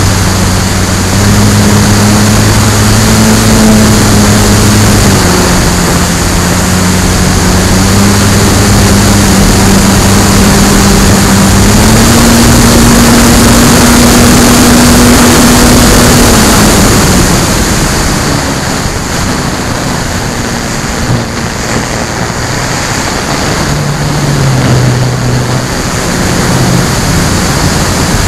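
Onboard sound of an FMS Bf-109 electric RC warbird in flight: the motor and propeller hum under loud wind rush on the camera. The pitch steps up and down, drops off about two-thirds of the way through, and comes back near the end.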